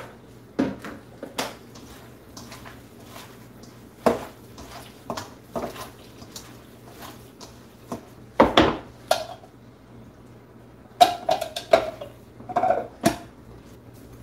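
Stainless steel mixing bowl clattering and knocking as sliced pork is mixed by hand in its marinade: scattered sharp knocks, the loudest about eight and a half seconds in and a quick cluster near the end.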